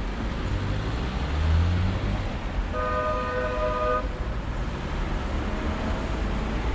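Busy city street traffic: engines and tyres running in a steady low rumble, with one vehicle swelling past. A vehicle horn sounds once as a single steady honk of about a second, near the middle.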